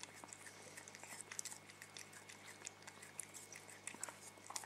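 A cat licking and chewing at soft ice cream: quick, irregular wet clicks and smacks of its tongue and mouth, several a second.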